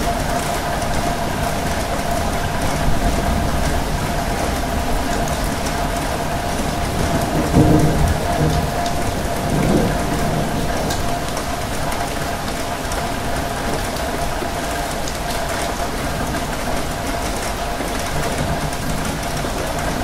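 Steady rain falling, an even hiss with a faint steady hum beneath it; a low rumble swells briefly about eight seconds in and again near ten seconds.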